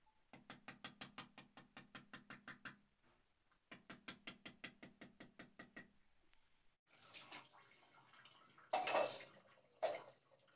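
Hammer tapping lightly and quickly, about six strokes a second, in two runs of about two seconds each. Near the end come a few heavier, irregular knocks, the loudest about nine seconds in.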